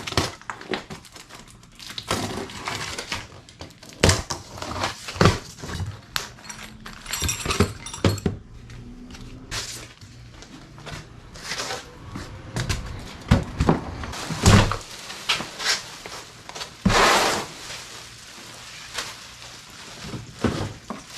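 Unboxing of a generator: cardboard packaging and packing material handled, scraped and pulled open, with many scattered knocks and thumps.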